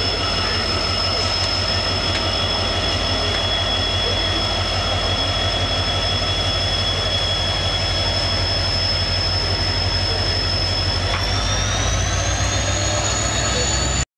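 Diesel locomotive running, a low engine rumble under a high turbocharger whine that rises in pitch about eleven seconds in. The sound cuts off suddenly near the end.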